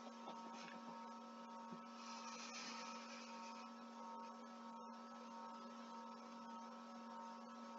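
Faint steady electrical hum: several steady pitches over a light hiss.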